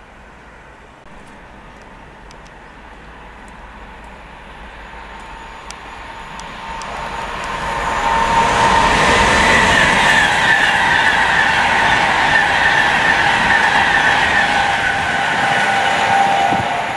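Class 390 Pendolino electric train approaching and passing through the station: a rising rushing noise that grows loud about eight seconds in, with a steady high whine over it. It starts to drop away near the end.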